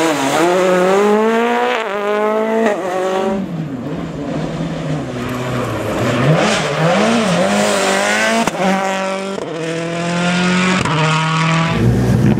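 Rally car engine accelerating hard through the gears, its pitch climbing and dropping back at each quick upshift. It eases off to lower, wavering revs in the middle, then accelerates up through the gears again.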